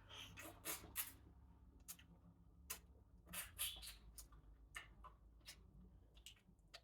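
Faint, irregular mouth clicks and smacks of eating and drinking at close range, about fifteen short sharp clicks spread unevenly over several seconds.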